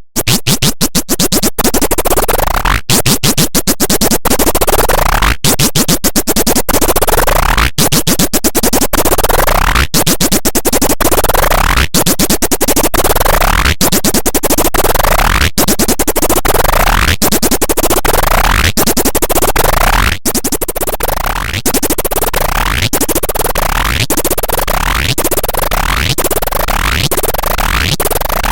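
A short sound effect looped over and over and sped up, heard as a run of rising sweeps about once a second. The sweeps come closer together near the end.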